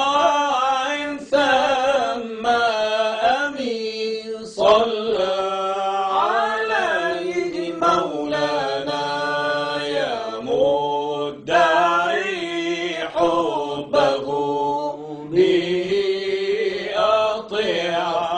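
A voice singing an Arabic devotional nasheed in long, wavering sung lines.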